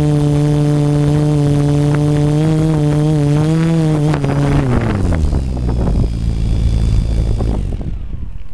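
Quadcopter's four RC Timer 2830 1000KV brushless motors and 10-inch props humming at a steady pitch in hover. About four seconds in, the hum falls in pitch as the craft sets down on the grass and the motors spin down, leaving a low rumble.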